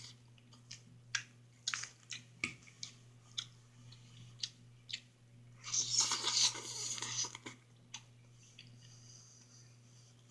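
Close-up chewing of soft food (eggs and tomato): short wet mouth clicks about every half second, with a louder, noisier stretch lasting over a second about six seconds in.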